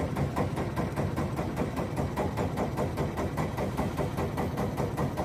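Boat engine running steadily while the boat is under way, with a fast, even beat.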